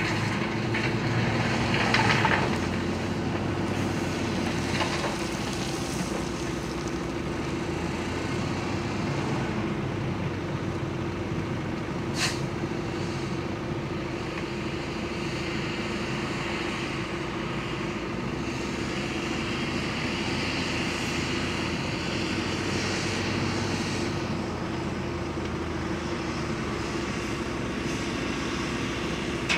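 Diesel wheel loader working a rock pile, its engine a steady drone, with a couple of brief scraping noises early and a sharp click about twelve seconds in.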